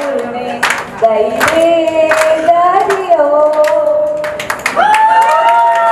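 A woman singing into a microphone, holding long notes that slide between pitches, amplified. Hand claps keep time, about one every three quarters of a second.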